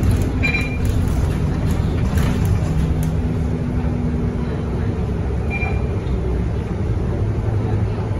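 Scania K230UB city bus heard from inside the cabin while driving: its five-cylinder diesel engine and drivetrain running steadily with road noise, the engine tone dropping away about five seconds in as the bus eases off. Two brief high squeaks sound, one near the start and one about five and a half seconds in.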